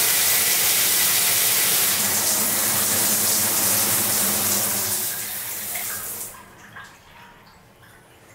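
Water spraying from a shower head with a steady hiss that starts abruptly, weakens about five seconds in and stops about a second later as the head's stop button shuts off the flow, leaving a few faint drips.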